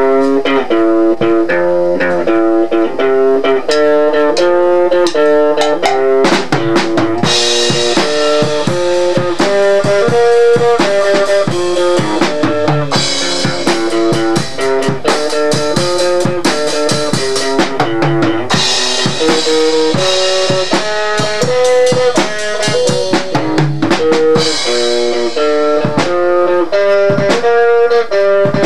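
Guitar playing a repeating riff, joined by a drum kit about six seconds in, with cymbals washing in and out over the beat.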